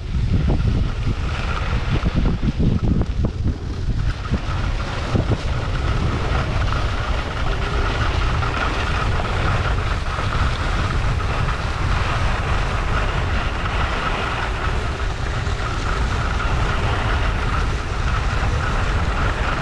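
Wind buffeting a GoPro Hero8's microphone, with skis hissing on groomed snow during a steady downhill run. The buffeting is uneven for the first few seconds, then settles into a steady rush.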